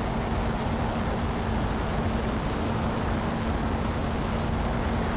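Robinson R66 turbine helicopter in flight: a steady noise of rotor, turbine and rushing air, with a constant low hum running under it.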